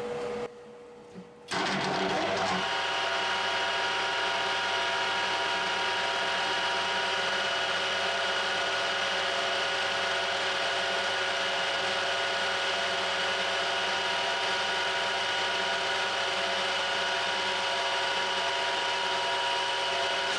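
Metal lathe starting up about a second and a half in and then running steadily at speed: a motor whine made of several steady tones.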